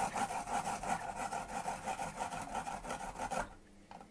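A garlic clove rubbed quickly back and forth over a hand grater's plastic grating plate: a rhythmic rasping that stops about three and a half seconds in.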